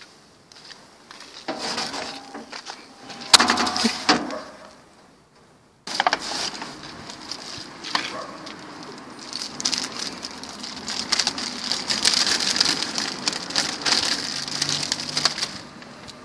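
Plastic packaging and paper rubbish crinkling and crushing as hands dig through a waste container, with a loud bang about three and a half seconds in.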